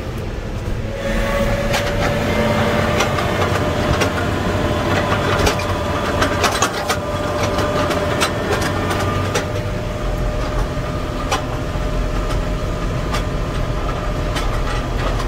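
Fendt tractor driving at road speed, towing a bag extractor: a steady engine rumble, with a steady high whine from about a second in and many sharp ticks and rattles throughout.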